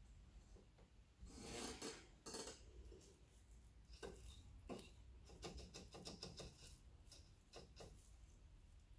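Faint handling sounds of pottery work: a rustling scrape about a second and a half in, then a quick run of light clicks and knocks as a straw hakeme brush is dipped and worked in a glass jug of liquid slip.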